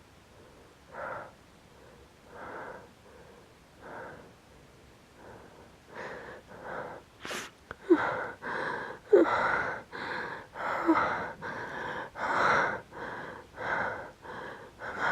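A woman's pre-sneeze hitching brought on by inhaled pepper. Slow, shaky breaths give way about six seconds in to quick, louder catching gasps, about two a second, with sharper catches near the eight- and nine-second marks, as the sneeze builds and is held back.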